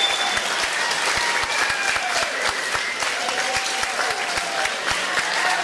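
Audience applauding: many hands clapping in a dense, steady patter, with a few voices calling out over it.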